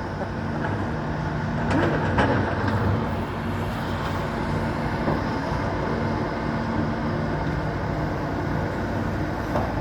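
Excavator's diesel engine running steadily, with a few short knocks about two seconds in.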